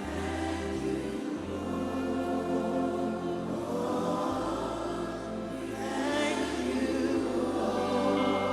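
Slow gospel worship music: a choir sings held notes over long sustained bass notes that change every second or two.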